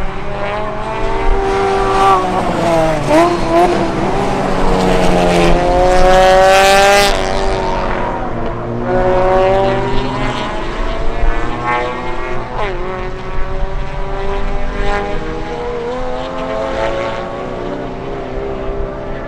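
Several race car engines running hard on a circuit, their pitch climbing and dropping through gear changes as the cars pass. The loudest pass comes about six to seven seconds in, its pitch climbing high.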